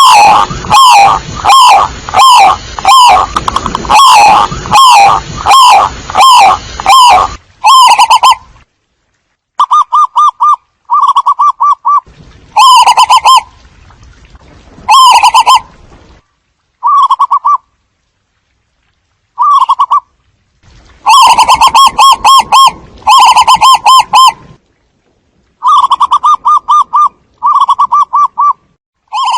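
Zebra doves cooing: rapid strings of short, rippling notes. They come thick and loud for the first seven seconds or so, then in separate bursts with pauses of a second or more between them.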